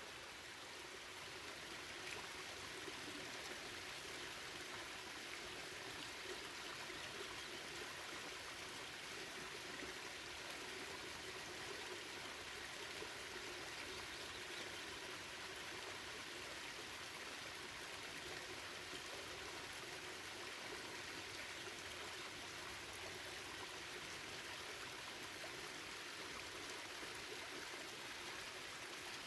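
Water of a stream and waterfall rushing steadily, an even, unbroken hiss with no distinct splashes or pauses.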